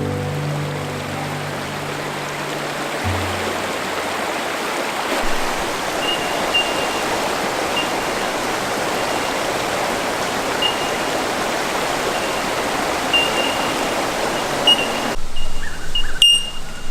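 Steady rush of flowing water, with short high pips recurring every second or so over it. A music track fades out in the first few seconds, and near the end the water noise cuts away to a quieter scene with a few clicks.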